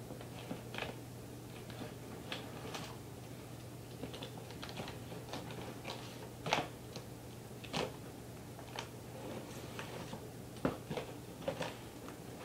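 Irregular clicks, scratches and scrapes of a knife working along packing tape and of hands handling a cardboard shipping box, a few of them sharper than the rest, over a faint steady hum.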